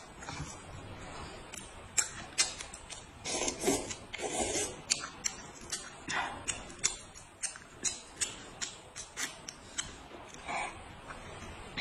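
Cooked shrimp being peeled by hand: irregular sharp clicks and crackles of the shells cracking and pulling away.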